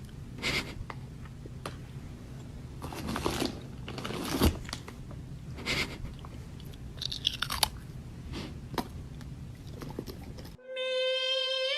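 A cat chewing and crunching on something, in irregular crunches with short pauses between them. About a second before the end it cuts off abruptly to a pitched melody.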